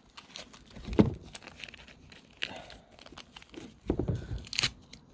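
Handling noises: a sharp knock about a second in, then scattered crinkling and lighter knocks, with a cluster of them near the end.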